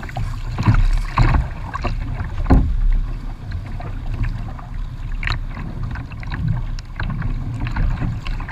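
Water sloshing and splashing against the hull of a plastic sit-on-top kayak with irregular short splashes as it is paddled through choppy water. Wind rumbles low on the microphone.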